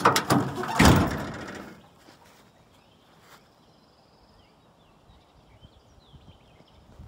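Pickup truck tailgate on a 2003 Dodge Ram 1500: the latch clicks as the handle is pulled, and about a second later the tailgate drops open and bangs to a stop against its support cables. A rattle follows and dies away within about a second.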